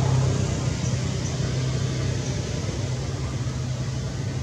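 A motor running with a steady low hum over a hiss, slowly fading.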